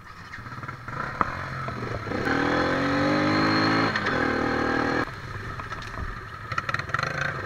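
Yamaha quad (ATV) engine running while riding, its pitch dipping and then climbing as it revs. A louder stretch in the middle cuts off abruptly and gives way to a quieter engine with a few clicks.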